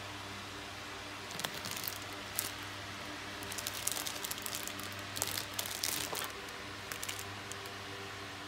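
Thin clear plastic bags around model-kit sprues crinkling in irregular bursts as they are handled, busiest in the middle, over a steady low hum.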